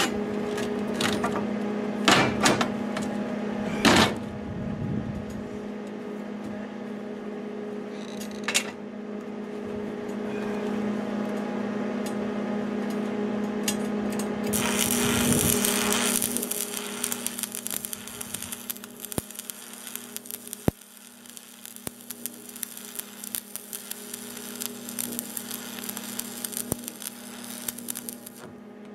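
Steel bracket pieces knocking a few times as they are set in place, then a Lincoln stick welder's arc struck about halfway through, crackling steadily through the rest, over the welder's steady hum.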